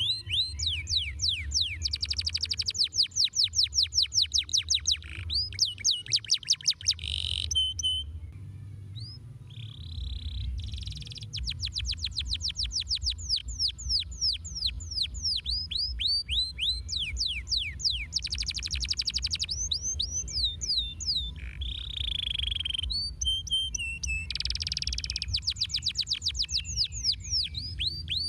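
Domestic canary singing: long, rapid trills of sharp downward-sweeping notes, phrase after phrase with short pauses, over a steady low rumble.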